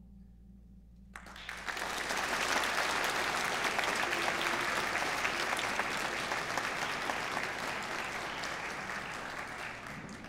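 The last ringing tones of a wind band's final chord, then audience applause breaking out about a second in and dying away near the end.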